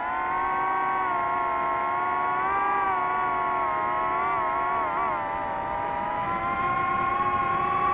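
Quadcopter drone's motors and propellers whining steadily, the pitch wavering and dipping briefly about five seconds in as it manoeuvres.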